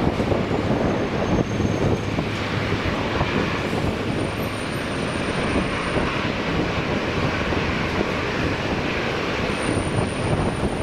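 Airbus A350-900's Rolls-Royce Trent XWB jet engines running at low taxi power as the airliner taxis close by: a steady rumble.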